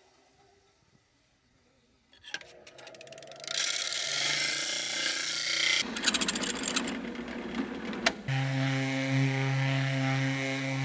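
Near silence for about two seconds, then power tools working a thin aluminum plate. First a drill bores into it, with a fast, even rattling chatter in the middle. From about eight seconds in, a random orbital sander runs steadily on the plate with a low hum.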